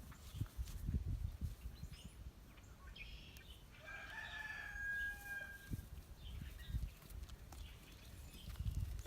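A farm animal's call: one drawn-out pitched call starting about four seconds in and lasting about a second and a half, over low rumbling noise.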